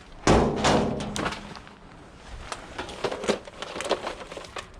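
Rummaging in a tall bin: a loud clunk about a quarter second in, then scattered knocks and rattles as items inside are moved about.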